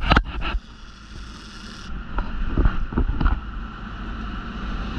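Fishing boat running under way: a steady low engine rumble and wind on the microphone, with a few loud knocks in the first half second.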